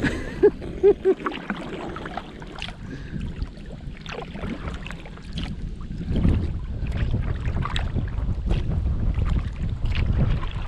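Wind buffeting the microphone on a kayak's bow, the low rumble growing stronger about six seconds in, over the light splashes of paddle strokes in the water.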